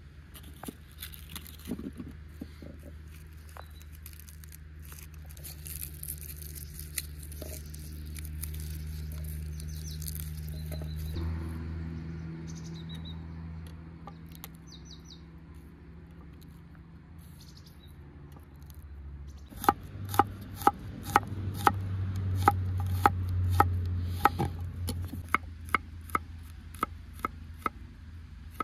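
A low steady hum with scattered small taps of handling, then, about twenty seconds in, a knife chopping food on a cutting board in an even rhythm of about two to three strokes a second.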